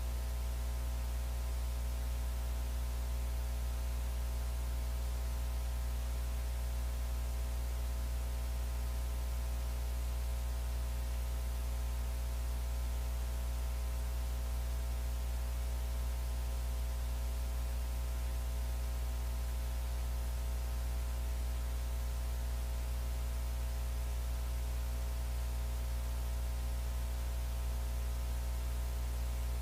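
Steady low electrical hum with a faint hiss over it, unchanging throughout; no punches, crowd or voices come through.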